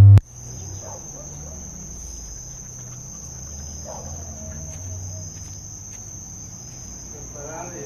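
Crickets trilling steadily, a continuous high-pitched chirr over a faint low hum. A loud held buzzing tone cuts off abruptly at the very start.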